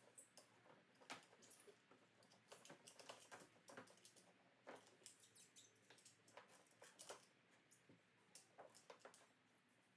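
Faint, irregular small clicks and scratches of a rubber weather seal being pulled and worked away from the edge of a Toyota Land Cruiser 80 series tailgate glass.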